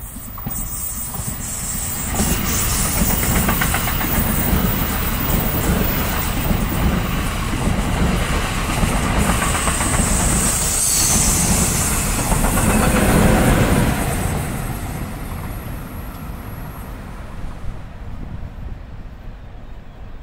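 An NJ Transit train of Bombardier MultiLevel coaches, pushed by an ALP-46 electric locomotive, passing through the station without stopping. The rumble of its wheels on the rails, with repeated clicking, grows loud within about two seconds, is loudest about thirteen seconds in, then fades as the train moves away.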